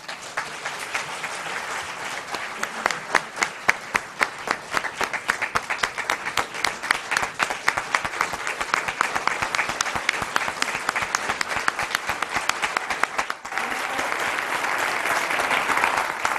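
A large audience applauding steadily. The clapping grows louder and fuller about three-quarters of the way through.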